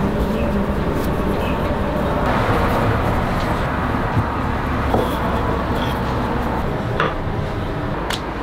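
Dough being pressed flat by hand and with a cleaver blade on a floured wooden board, giving a few soft knocks, over a steady background noise.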